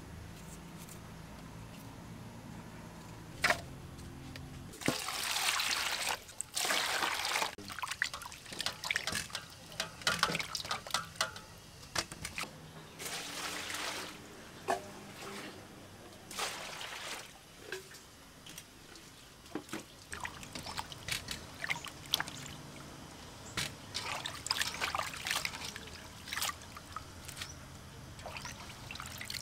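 Water poured from a plastic dipper and splashing in repeated pours of a second or two each, with a few sharp knocks in between.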